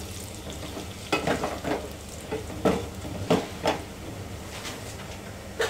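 Wooden spoon stirring and scraping frying onions around an aluminium pressure cooker: several short scrapes in the first half, then one more near the end. Under them, oil sizzles faintly.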